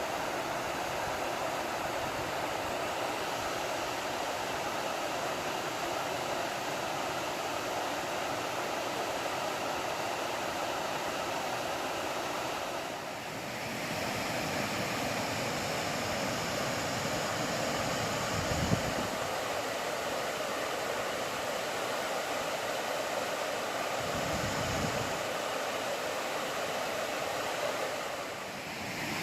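Steady rushing of a creek waterfall, with one brief low thump about two-thirds of the way through.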